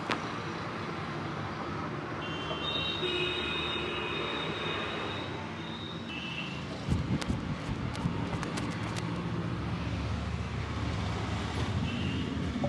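Roadside traffic noise. A high steady tone sounds for a few seconds near the start, and the low rumble grows heavier about halfway, with a handful of sharp clicks.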